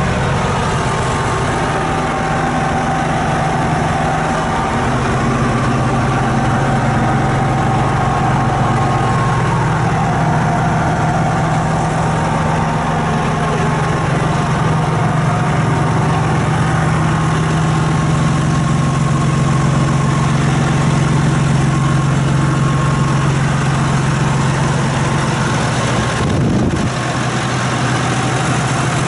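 John Deere 8420T track tractor's six-cylinder diesel running steadily at a low idle, its pitch stepping down a little about four seconds in. There is a brief whoosh near the end.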